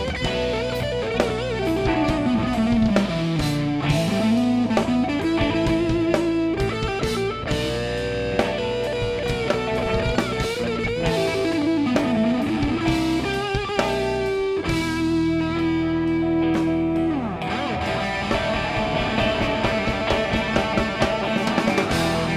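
Live rock band playing an instrumental passage: an electric guitar lead line with sliding, bent and held notes over a drum kit.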